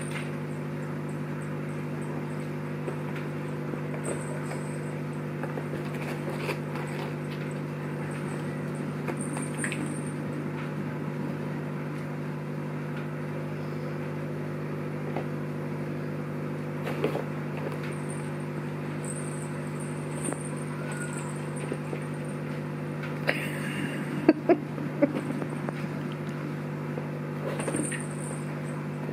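A steady low hum throughout, with scattered light knocks and rattles from kittens batting a cat toy's wire springs and scratcher base, and a few sharp knocks about three-quarters of the way through.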